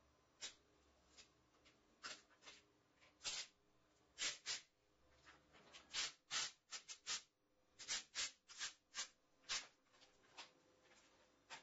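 Application tape on a vinyl transfer being rubbed down and peeled back by hand: a series of short, irregular papery swishes and rustles, thickest in the middle.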